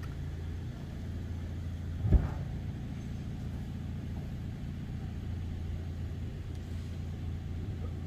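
An engine idling steadily with a low hum, and one sharp knock about two seconds in.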